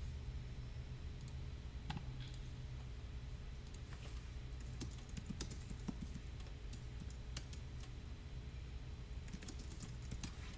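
Steady low hum with faint, scattered clicks and taps scattered irregularly across the few seconds.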